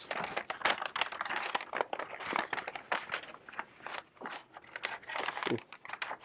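A large sheet of stiff brown paper being folded into an origami bird by hand: an irregular, continuous crinkling and rustling of creased paper.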